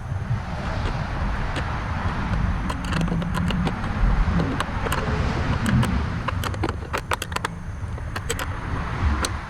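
Small metallic clicks and clinks of a 10 mm wrench tightening the bolts that hold a scarifier attachment on an electric dethatcher. Under them, a rushing noise of a passing vehicle swells and fades.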